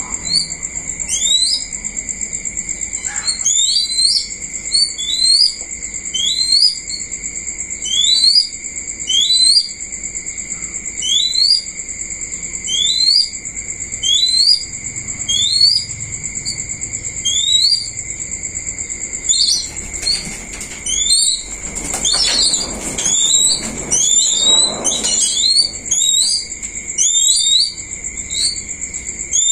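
A bird repeating short rising chirps about once a second over a steady high-pitched drone. Around two-thirds of the way in comes a few seconds of rustling and flapping.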